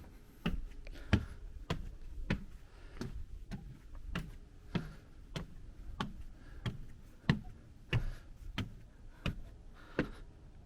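Footsteps of a walker on a forest trail, an even stride of about three steps every two seconds, each step a sharp tap over a low thud.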